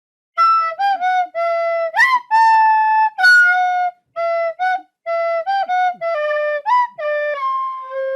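A short flute melody: a run of clear notes, some brief and some held, with a few upward slides between them, ending on a longer, lower held note near the end.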